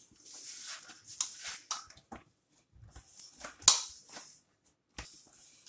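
Soft gulab jamun dough being kneaded and pressed by hand against a stainless steel plate: irregular squishing and scraping of the dough on the metal. A single sharp click stands out about two-thirds of the way through.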